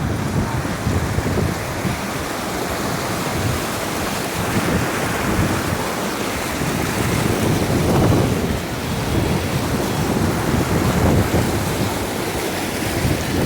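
Heavy wind buffeting the microphone: a loud, rumbling rush that swells and eases every few seconds.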